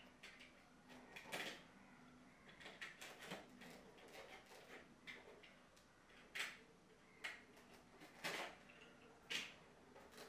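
Utility knife slitting the seal of a small cardboard box and the box being handled and opened: faint scraping with a few sharp clicks and taps.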